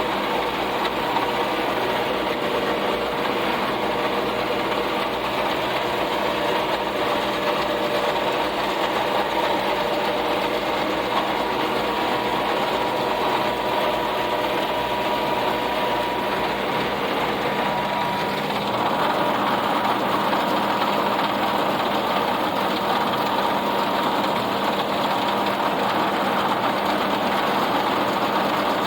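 Tractor running steadily while pulling a round baler, with a busy rhythmic mechanical clatter. A steady whine drops out about two-thirds through and the running gets slightly louder.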